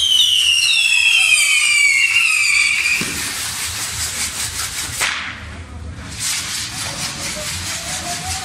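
Fireworks of a torito (a pyrotechnic bull frame) going off. For about the first three seconds several shrill whistling rockets sound at once, each falling in pitch, over a steady crackle and fizz of sparks that carries on to the end.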